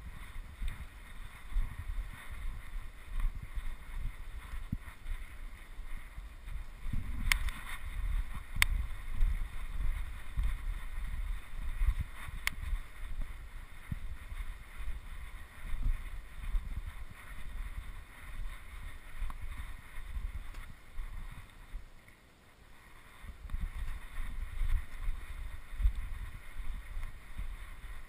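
Gusty rumble of wind buffeting the microphone, with three faint sharp clicks between about seven and thirteen seconds in.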